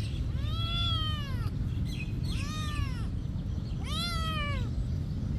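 A cat meowing three times, each meow rising then falling in pitch, over a steady low background rumble.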